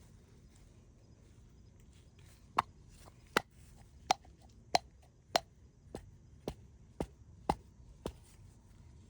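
A series of about ten sharp knocks, each with a short ring, evenly spaced a little over half a second apart, starting a few seconds in; most of the later knocks are weaker.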